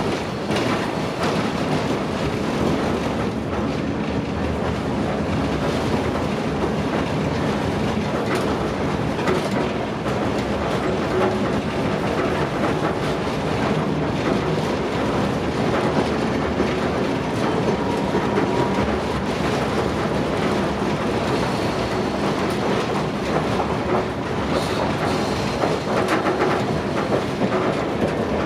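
Inside an old Tosaden 200-series street tram (car 205) under way: a steady rumble of steel wheels on the rails, with irregular clicks and knocks over rail joints and an occasional faint whine.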